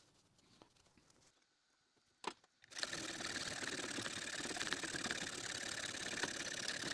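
Hacksaw cutting through a small aluminium part clamped in a bench vise: steady sawing that starts about three seconds in, after near silence.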